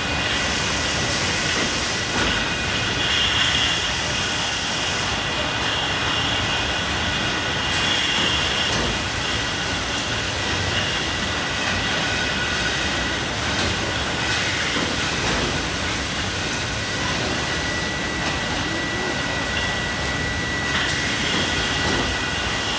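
Steady din of bottling-plant machinery with an automatic depalletiser working: a continuous mechanical running noise with a few high whining tones over it, and a higher hiss that comes and goes several times.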